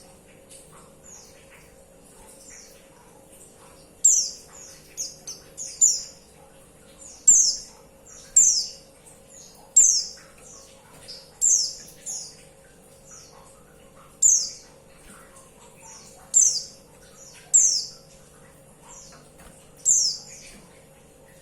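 Female white-eye (pleci) calling: short, sharp chirps that slide down in pitch, about one every second or so from about four seconds in, with only faint calls before. It is a call used to rouse male white-eyes into song.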